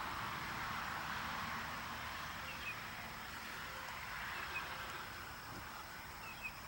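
Steady outdoor background hiss, slowly fading, with a few faint, short, high bird chirps spaced a couple of seconds apart.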